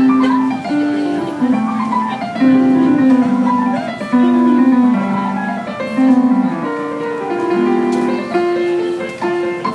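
Portable digital piano being played by hand: a flowing melody of held notes stepping up and down over sustained lower notes.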